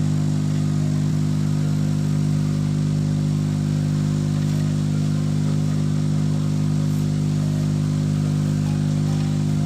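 Electric polishing motor running steadily with a constant low hum, its small buffing wheel spinning while a gold bangle is held against it for polishing.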